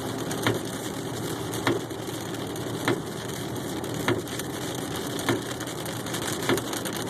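Rain on a moving car with the windshield wipers sweeping steadily, one beat about every 1.2 seconds.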